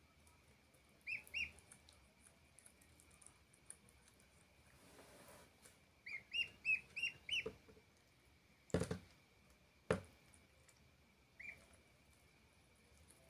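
A duckling peeping in short high calls: two about a second in, a quick run of five or six a little past the middle, and one more near the end. Two sharp knocks come between the calls and are as loud as the loudest peeps.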